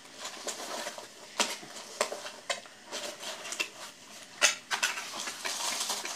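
A small cardboard shipping box being opened by hand, with its paper packing crinkling and rustling. Sharp taps and scrapes come now and then, and the rustling grows denser near the end.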